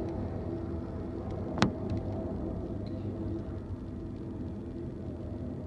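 Intermodal freight train rolling past, a steady rumble with a single sharp clank about a second and a half in.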